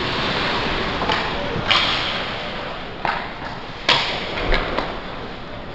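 Ice hockey play: skate blades scraping on the ice under a string of sharp clacks of sticks and puck, about five of them, two louder than the rest.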